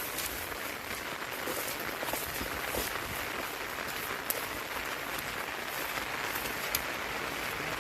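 Steady rain falling, an even hiss with a few sharp taps of drops.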